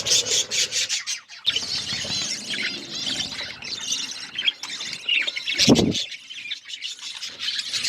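Budgerigars and lovebirds chirping and chattering in a flurry of quick high chirps and squawks. About three-quarters of the way through there is a brief, louder low thump.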